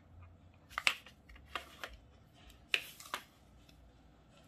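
Sharp plastic clicks and scrapes from a yellow pen-style digital pH meter being handled as its tight battery cap is worked at. There are about five clicks, spread over three seconds.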